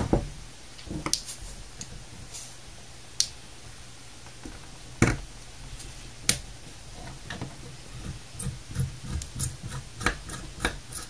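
Scattered sharp clicks and taps of a small screwdriver and fingers against a hard drive's metal top cover while working through the label to reach a hidden screw. A quicker run of small ticks and scrapes comes near the end.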